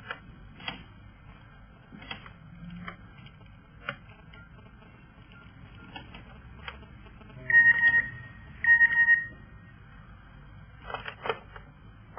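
Mobile phone being operated: scattered clicks from its keys and handling, and two loud electronic beeps from the phone, each over half a second long and just over a second apart, a little past the middle.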